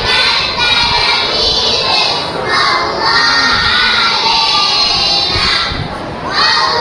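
A children's choir singing together, many young voices at once.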